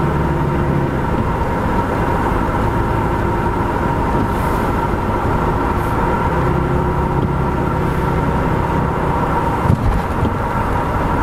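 Road and engine noise heard inside a car driving on a worn paved road: a steady low rumble with a droning tone, and one brief bump near the end.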